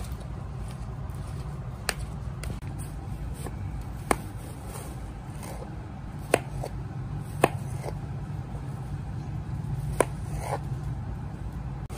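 Kitchen knife slicing through watermelon and tapping the plastic cutting board: about five sharp clicks, irregularly spaced, over a steady low hum.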